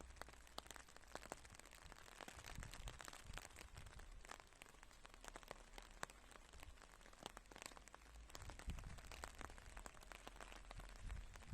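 Rain falling during a thunderstorm, faint, heard as a dense patter of many small drop hits, with a low rumble underneath that swells about three-quarters of the way through and again near the end.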